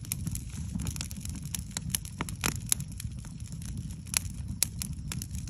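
Wood campfire crackling, with frequent sharp, irregular pops from the burning logs over a low steady rumble of the flames.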